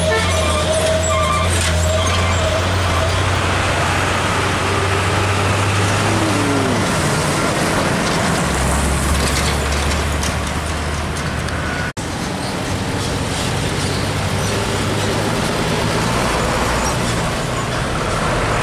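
Heavy diesel trucks passing close by one after another, their engines running steadily over road traffic noise. The sound breaks off for an instant about twelve seconds in and carries on with the next truck.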